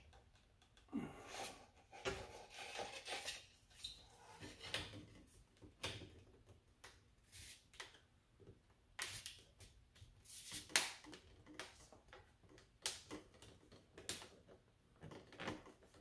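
Faint, scattered knocks, clicks and scrapes of a lamp tube being slid down over its mounting bracket on a round lamp base and pressed into place in a test fit.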